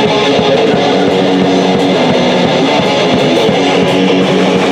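A punk band playing live and loud, led by an electric guitar.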